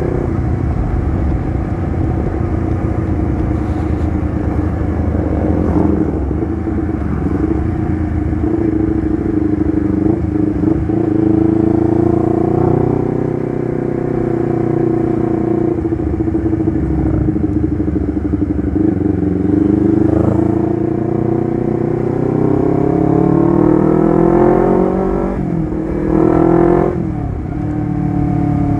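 Honda CBR250RR parallel-twin running through an R9 GP series stainless full-system aftermarket exhaust while ridden. The engine note climbs with each acceleration and drops at the gear changes, several times over, with a quick sharp rise and fall near the end.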